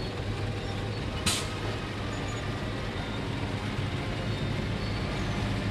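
Narrow-gauge mountain train's diesel locomotive engine running steadily with a low hum, and a brief sharp hiss about a second in.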